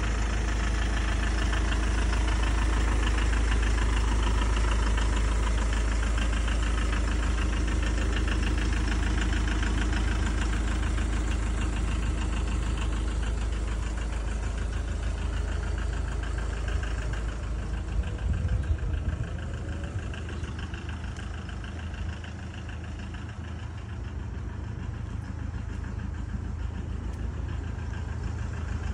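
Iveco Daily 50C18 minibus's 3.0-litre four-cylinder turbo-diesel idling steadily with an even firing rhythm; it grows quieter about two-thirds of the way through.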